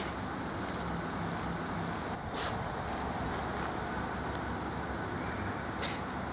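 A cat with a cold sneezing three times, short hissy sneezes at the start, about two and a half seconds in, and near the end. Steady street traffic noise runs underneath.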